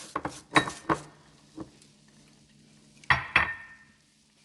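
Kitchen utensils clinking against a mixing bowl: a quick run of clinks in the first second, then two sharper knocks with a brief ring about three seconds in.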